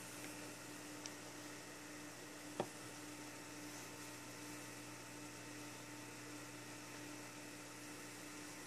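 Low steady electrical hum with faint hiss, and a single sharp click about two and a half seconds in.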